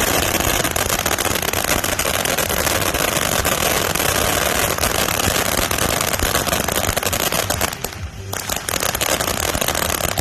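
Many 'safe and sane' ground fireworks going off at once: dense, continuous crackling and popping, with a brief lull about eight seconds in.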